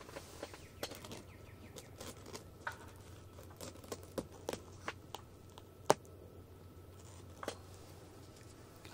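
Faint rustling and scattered small clicks of gear being handled inside a hunting ground blind, irregular and a few a second at most, with one sharper click about six seconds in.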